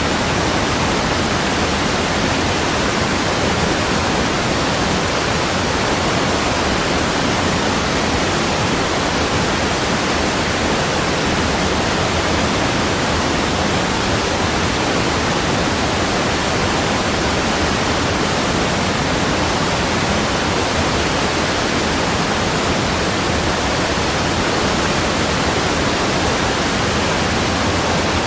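Rushing water in a steady, even roar with no surges or breaks.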